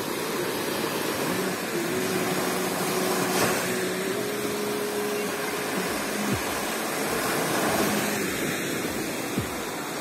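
Small waves breaking and washing up a sandy beach, a steady rushing noise. A faint steady hum comes in about a second and a half in and stops about eight seconds in.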